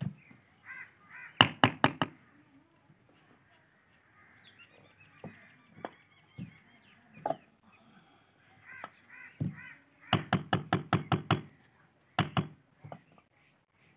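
Hammer striking a brick in quick runs of blows: about four near the start, a run of about eight a little after the middle, and two more near the end. Crows caw in between.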